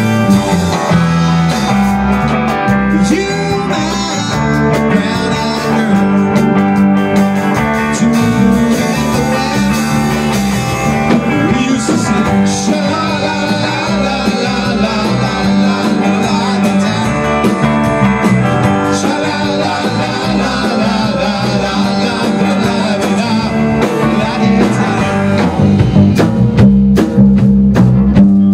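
Rock band playing live: two electric guitars over a drum kit, with no words sung. The drums get louder and heavier near the end.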